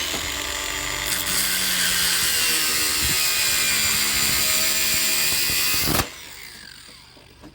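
Angle grinder cutting through a piece of plain steel. It runs steadily and bites harder about a second in, then is switched off about six seconds in and winds down with a falling whine.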